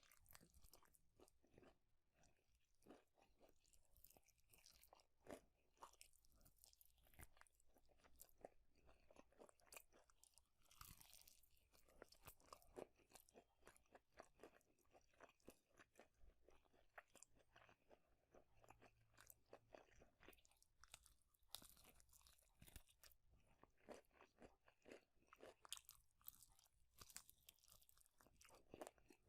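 Close-miked chewing of fast food, a dense run of soft wet crunches and crackles from a mouth eating.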